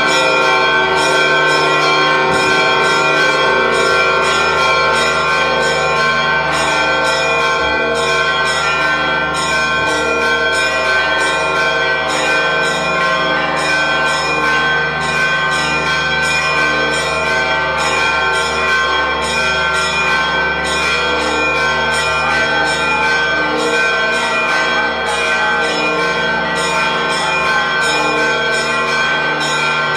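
Church bells ringing in a continuous peal, several bells struck in quick succession without a break: the festive ringing that greets the Holy Fire coming out of the Edicule.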